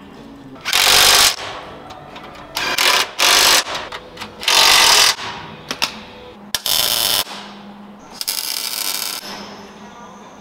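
Power tool working the steel truck frame in about five short bursts of half a second to a second each, starting and stopping sharply, with quieter clatter between them.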